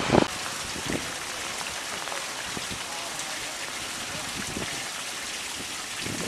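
Wind buffeting the microphone for a moment at the very start, then a steady hiss of rain and runoff water trickling into a curbside storm drain grate.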